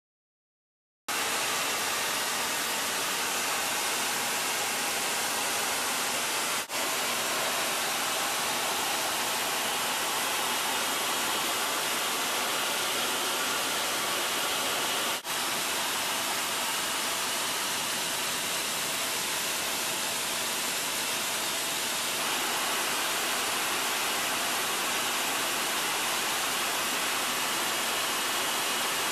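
Steady rushing roar of air and engine noise inside a jet cockpit in flight. It cuts in abruptly about a second in and runs on evenly, broken by two split-second dropouts near 7 and 15 seconds.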